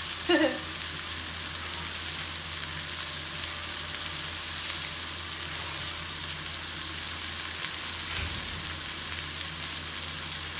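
Food frying in a pan with oil, a steady sizzle throughout, with a brief low thud about eight seconds in.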